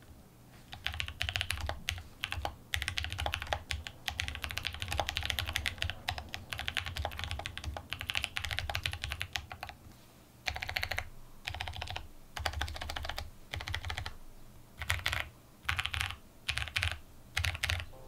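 Typing on a Mode SixtyFive custom mechanical keyboard (stack mount with FR4 plate, plate foam and silicone base, Mode Signal switches, GMK keycaps): rapid runs of keystrokes with a distinctly muted sound, broken by short pauses.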